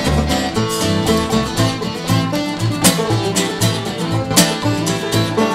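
Traditional old-time string band playing a tune: strummed acoustic guitar and claw-hammer banjo over pulsing bass notes.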